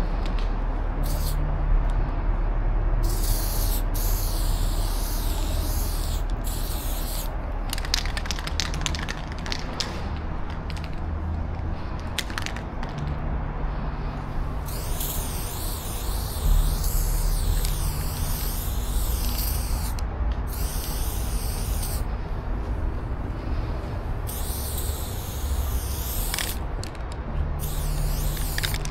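Aerosol spray-paint can spraying in repeated bursts of hiss, some short and some several seconds long, over a low steady rumble.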